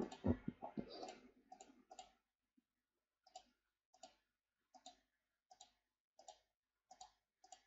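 Faint clicks of computer keyboard keys being tapped one at a time, in a loose repeating run.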